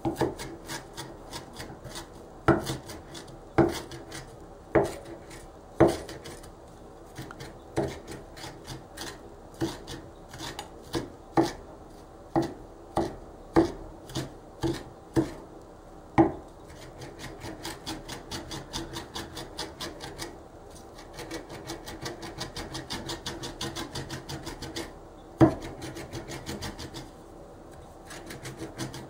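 One-handed mezzaluna rocking-blade knife mincing curly parsley in a hollowed chopping bowl. Sharp single knocks of the blade on the board come about once a second, then a quicker, softer rocking rhythm of several strokes a second takes over, broken by one loud knock near the end.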